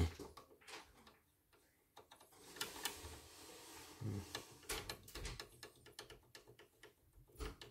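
Faint, irregular clicks and light knocks from an embroidery machine's old rotary hook being rocked back and forth by hand. The clicking is the play of a worn, loose (oblak) hook.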